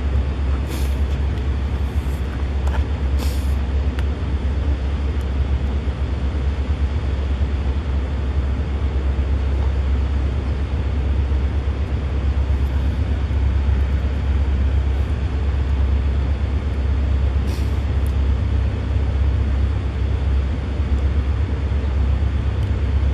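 Canadian Pacific diesel freight locomotives approaching under power, a steady low engine rumble, with a few short faint clicks near the start and once more later.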